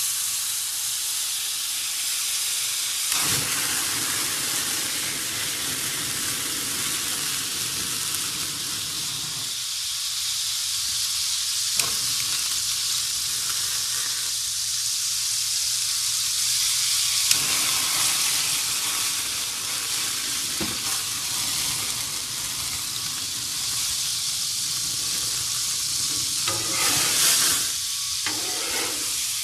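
Sliced bananas in butter and brown-sugar sauce sizzling hard on a hot flat-top griddle as spiced rum is poured over them and boils off in steam. A steady hiss, with a few light knocks and a louder stretch near the end.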